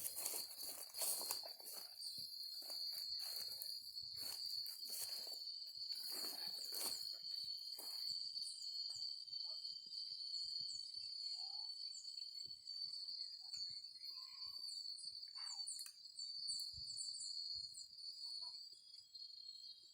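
A steady, high insect trill, typical of crickets, with a run of sharp clicks and scrapes in the first half that then dies away.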